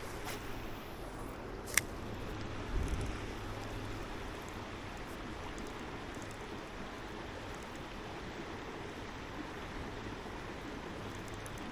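Creek water running steadily, with a sharp click about two seconds in and a low thump about a second later.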